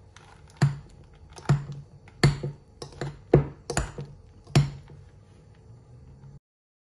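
Electric hand mixer running on low speed through whipped cream and mascarpone, a low motor hum with its beaters knocking against the glass bowl in about seven sharp clicks. The sound cuts off suddenly near the end.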